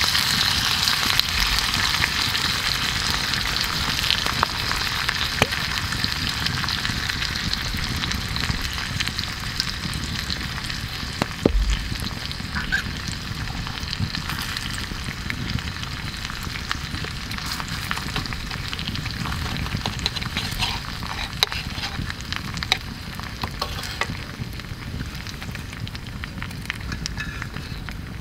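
Steak sizzling in a frying pan over a wood campfire as it is reheated, with scattered crackles from the fire. The sizzle is loudest at the start and slowly dies down.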